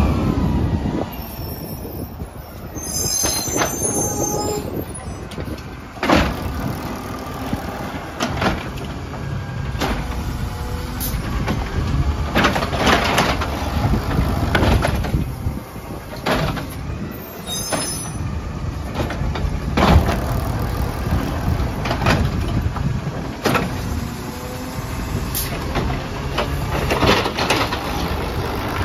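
Peterbilt 320 automated side-loader garbage truck's engine running while its hydraulic arm grabs, lifts and dumps roll carts, with a series of knocks and bangs from the carts and arm every second or two.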